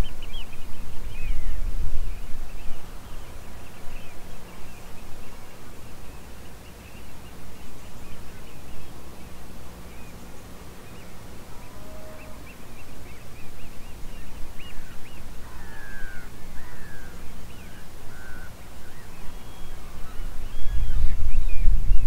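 Outdoor birdsong: many short chirps and calls from several birds, with a louder burst of calls about two-thirds of the way through. A low rumble sits under the birds at the start and comes back near the end.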